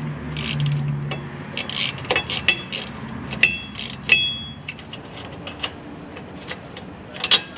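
Small metal exhaust hardware, bolts and nuts, clinking and rattling as it is handled. There are a dozen or so irregular sharp clinks, several with a short metallic ring.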